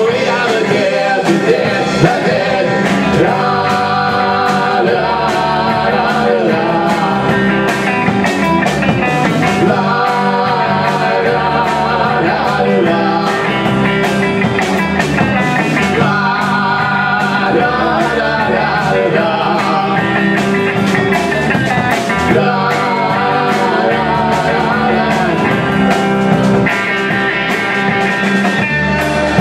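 Live rock band playing loudly, with electric guitars over a drum kit.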